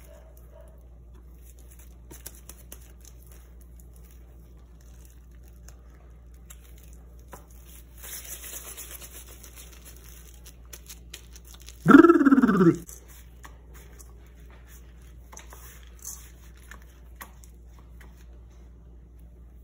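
Soft rubbing of nitrile-gloved palms rolling a ball of peanut paste over a steady low hum. About twelve seconds in, a dog gives one loud bark, a short cry falling in pitch and lasting under a second.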